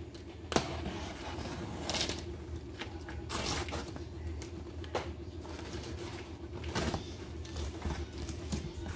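Cardboard shipping box being torn open by hand: packing tape ripping and cardboard flaps scraping and rustling in a series of short rips, with a sharp snap about half a second in.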